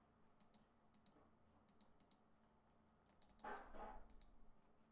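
Near silence with faint, scattered clicks at the computer, typical of a mouse and keyboard being used. A short, soft, louder noise comes about three and a half seconds in.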